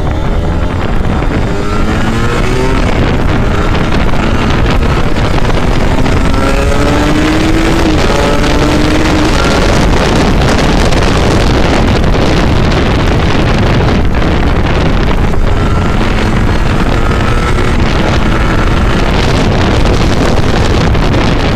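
Kawasaki Ninja 150RR's two-stroke single-cylinder engine pulling while riding, its pitch climbing several times, under a steady rush of wind on the microphone.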